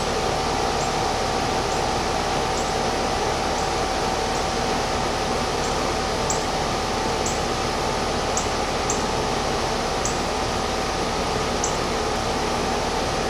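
A steady mechanical whir with a constant mid-pitched hum, unchanging in level, and faint short high ticks about once a second.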